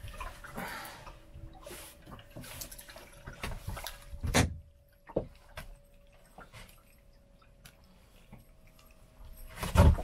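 Small-boat fishing sounds while a herring is reeled in: water splashing, scattered clicks and knocks of tackle, and one loud thump about four seconds in, over a faint steady hum.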